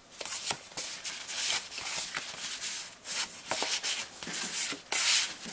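Stiff cardstock Project Life journaling cards sliding and rubbing against one another as a stack is thumbed through by hand, in a run of irregular papery swishes, the loudest about five seconds in.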